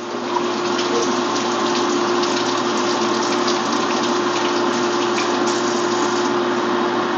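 Hot saag cooked in ghee sizzling and crackling in a frying pan, a steady rushing hiss with a constant hum under it and light crackles through the middle.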